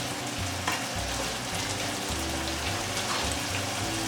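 Pork and bagoong (fermented shrimp paste) sautéing in a pan: a steady sizzle with a few small pops.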